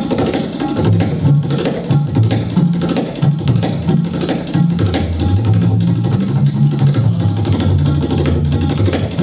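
Tabla played in a fast, unbroken run of strokes imitating a speeding train, with the bayan's deep notes bending in pitch from about a second in. It is meant as the train's sound as it passes through a tunnel.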